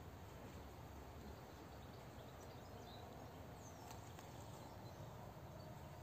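Faint outdoor ambience: a low steady hiss and rumble, with a few faint short high chirps about halfway through.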